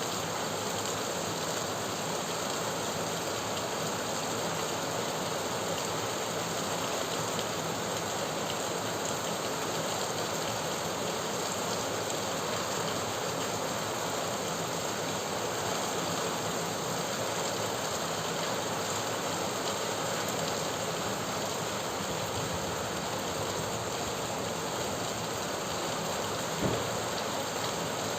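Steady rain falling and pattering on surfaces, with one short knock near the end.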